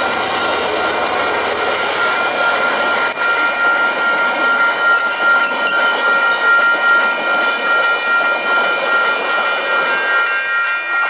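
The Northern Explorer passenger train rolls past a level crossing while the crossing's Safetran Type 3 and Western Cullen Hayes electronic bells keep ringing with steady tones. The noise of the carriages drops away near the end as the last car clears, leaving the bells.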